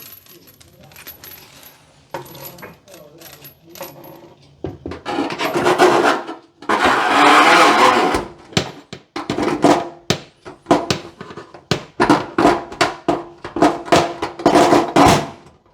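Metal parts of a new kitchen faucet clinking and clattering, with short metallic ringing, as the faucet is handled and set into the sink. About five seconds in there is a stretch of dense rustling, then a rapid run of clinks through the rest.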